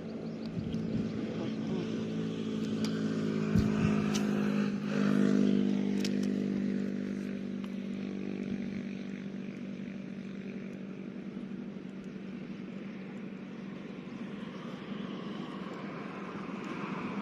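A motor vehicle's engine running steadily, growing louder for a few seconds then easing off as it passes, with a single sharp knock a few seconds in.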